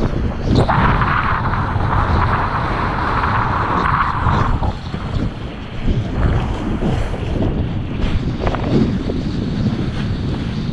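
Wind buffeting the kiteboarder's action-camera microphone while the kiteboard cuts through choppy water, with spray hissing. The spray hiss drops out about halfway through, leaving the wind rumble and an occasional thump of water.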